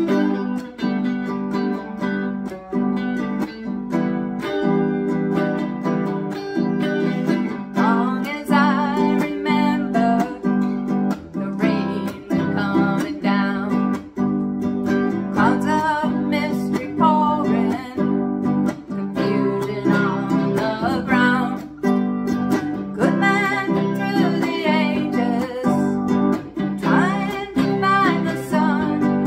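A ukulele strummed together with an electric guitar playing through a small amplifier, in a home duo performance of a song. A woman's singing voice joins about eight seconds in and carries the melody over the strumming.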